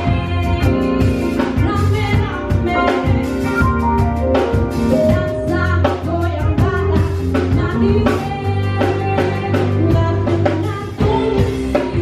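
Live band music: a woman singing an Indonesian song over a drum kit and other instruments, with a steady beat.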